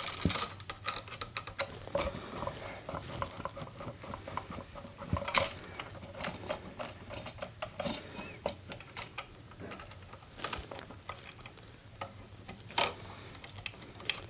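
Screwdriver backing terminal screws out of an electrical outlet to unhook its wires: a run of small irregular clicks and metal scrapes, with sharper clicks about five seconds in and again near the end.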